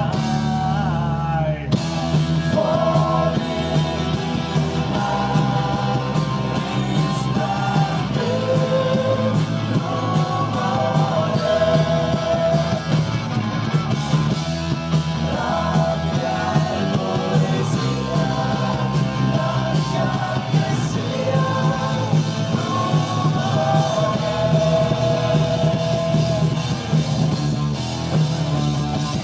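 Live rock band playing electric guitar, bass guitar and drum kit, with a sung lead vocal over the top.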